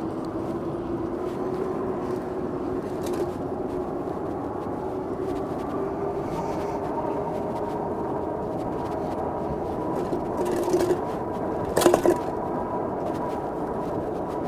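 Electric bike underway: a steady rumble of tyres and wind with a faint motor whine that rises slowly in pitch, and a sharp rattling knock about twelve seconds in.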